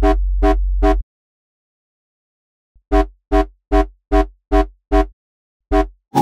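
Serum software synth patch played as short stabs: an FM triangle-wave tone with a deep sub-oscillator bass beneath. First the sub holds steady under three quick stabs. After a pause come seven more stabs in quick succession, each with its own bass pulse, as the sub's volume follows the LFO.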